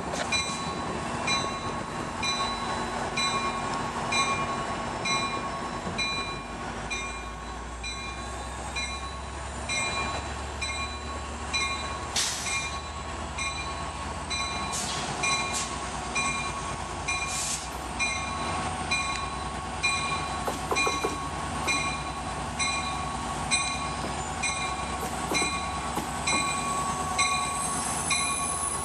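Amtrak F59PHI diesel locomotive 457 approaching and pulling up alongside with a bell ringing in an even rhythm throughout, its engine and wheel noise growing louder near the end. A few brief high squeals from the wheels come about midway.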